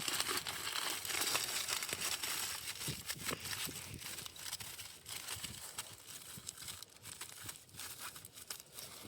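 Aluminium foil being folded and crumpled by hand around hot dogs, a busy crinkling that thins out toward the end.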